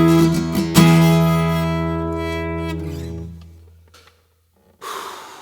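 Acoustic guitar with a final chord strummed about a second in, the chord ringing and slowly dying away as the song ends. A brief soft noise follows near the end.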